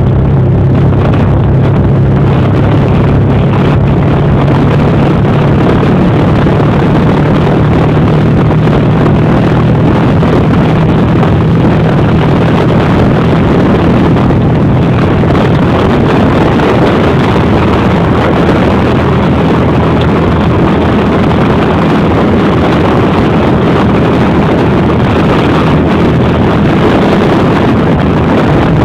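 Motorcycle engine running steadily under way, with a low steady hum and heavy wind rushing over the microphone.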